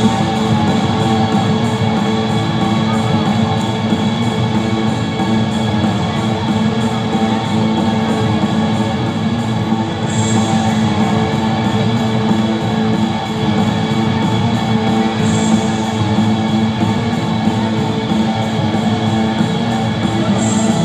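Loud music with guitar and drums, played over a sports hall's loudspeakers as a fighter's walk-out music.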